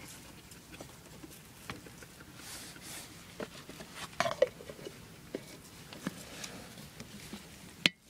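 Light clicks and knocks from a Jetboil cooking cup being handled, with a brief squeak a little past halfway and a sharp click near the end as the lid is fitted on.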